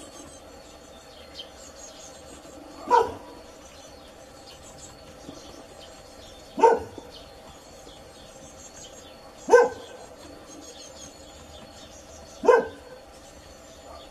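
A dog barking four times, one bark about every three seconds, with faint high bird or insect chirps underneath.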